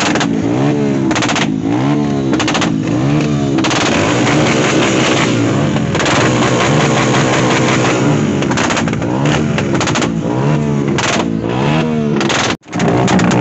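Motorcycle engine revved hard again and again, the pitch rising and falling with each blip, with sharp exhaust pops and bangs ('pataka' backfire shots) crackling between the revs. The sound cuts out for an instant near the end.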